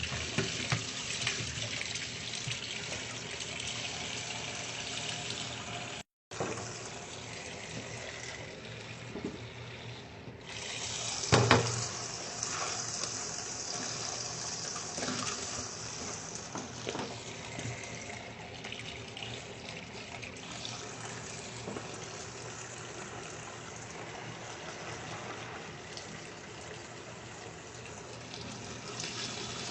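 Water running steadily into a top-loading washing machine's tub as it fills. It drops out completely for a moment about six seconds in, and there is a brief louder thump about eleven seconds in.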